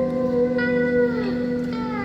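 Live band music: slow guitar notes that slide and bend in pitch over a held low chord, heard from the arena seats.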